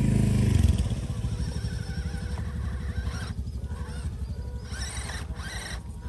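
Low engine-like rumble of radio-controlled off-road trucks running, loudest in the first second, then steady.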